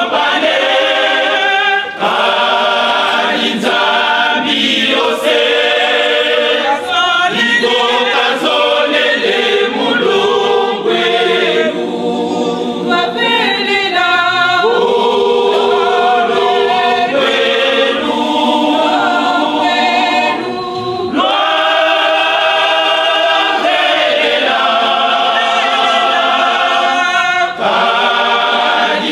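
A congregation of women singing a hymn together, unaccompanied, in long held notes with brief pauses between phrases.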